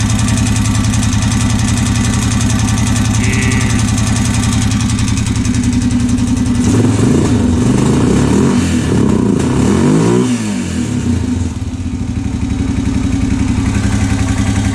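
Honda 650 single-cylinder engine idling steadily, then revved up and down several times about seven to ten seconds in before settling back to idle.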